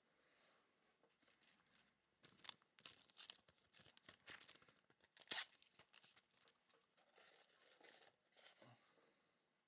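Faint rustling and scraping of trading cards and plastic card holders being handled and slid about, in short scratchy strokes with a louder scrape about five seconds in.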